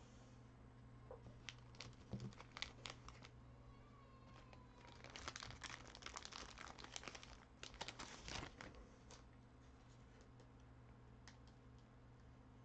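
Faint crinkling and tearing of plastic card packaging being handled and opened, with a few light clicks early and a longer stretch of crinkling from about five seconds in, over a low steady hum.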